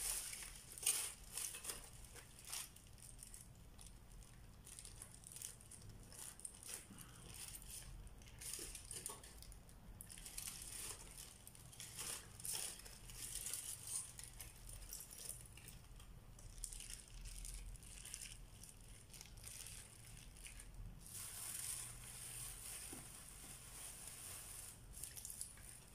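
Plastic bag and aluminium foil food wrapping crinkling and rustling irregularly as hands unwrap and open it.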